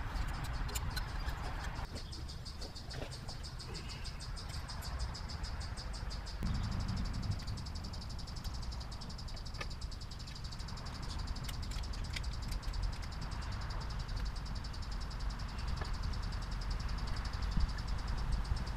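Outdoor ambience: insects chirring in a steady, rapid, high-pitched pulse over a low rumble, with a few faint clicks.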